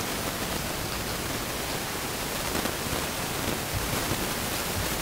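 Steady hiss with no clear events, only a few faint soft ticks.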